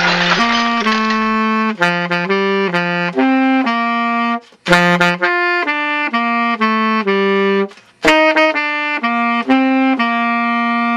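A saxophone playing a slow melody one note at a time, in three phrases separated by two short breaths.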